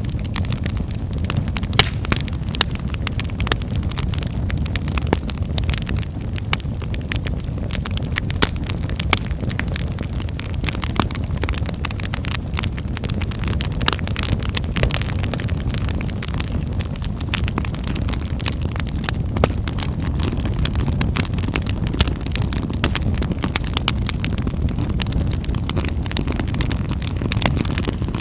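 Wood fire burning in a fireplace: a steady low rumble of the flames with many sharp crackles and pops at irregular intervals.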